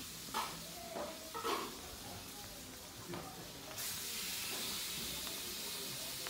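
Steady hiss of outdoor background noise, with a few short faint sounds in the first two seconds; the hiss gets louder and brighter suddenly about four seconds in.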